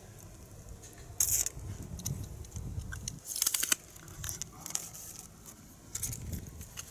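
Outdoor ambience: an uneven low rumble with short bursts of crackling rustle, one about a second in and another around three and a half seconds.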